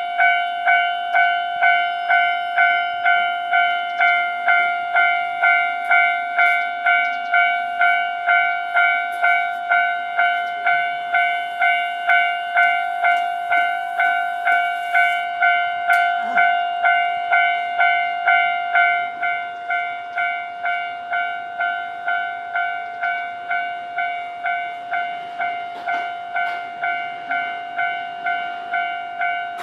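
Japanese railway level-crossing alarm ringing: a repeated electronic bell tone, about two strikes a second. It becomes quieter about two-thirds of the way through.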